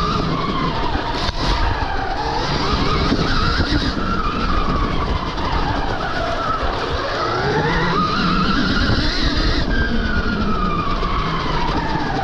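Stark Varg EX electric dirt bike ridden hard on trails. Its electric motor whines, the pitch rising and falling again and again with speed, over a steady heavy low rumble.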